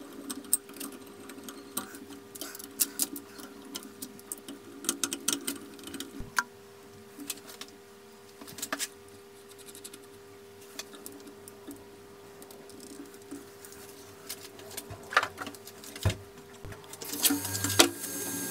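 Scattered clicks and scrapes of a screwdriver and small parts against the metal terminal box of a three-phase electric motor, over a faint steady hum. Near the end a louder rubbing as a rubber-sheathed cable is pushed through a plastic cable gland.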